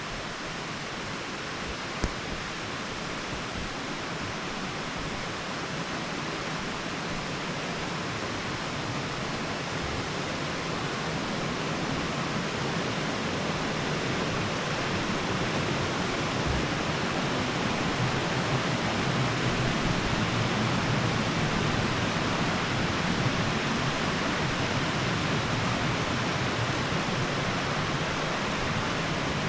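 Steady rush of falling and running water from Taughannock Falls, a tall plunge waterfall, and the shallow rocky creek below it, growing gradually louder. A single short tap about two seconds in.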